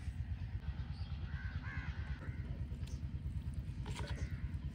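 Crows cawing a few times about a second and a half in, over a steady low rumble, with a few light clicks near the end.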